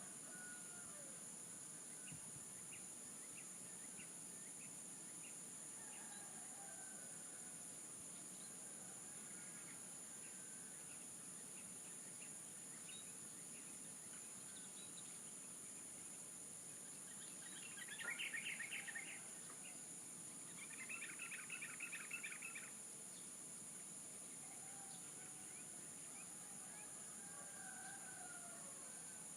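Roosters crowing faintly in the distance several times over a steady high-pitched insect drone. A little past halfway, a bird gives two short bursts of rapid chirping, the loudest sounds here.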